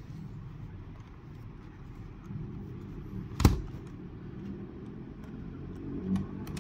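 A plastic mechanical keyboard being handled on a desk: one sharp knock about three and a half seconds in, a few faint clicks near the end, over a steady low hum.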